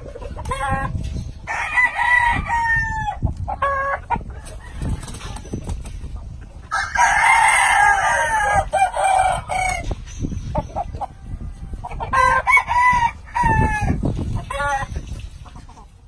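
Gamefowl roosters crowing several times in a row, with a few shorter clucking calls in between. The loudest and longest crow comes about seven seconds in.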